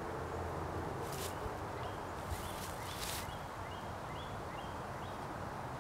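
Steady outdoor background noise with a bird chirping in a series of about eight short high notes through the middle, and a couple of brief rustles.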